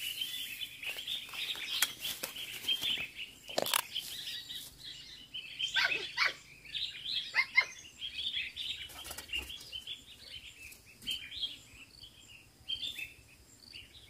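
Small birds chirping and twittering steadily all around, with a few short rustles and knocks mixed in during the first half.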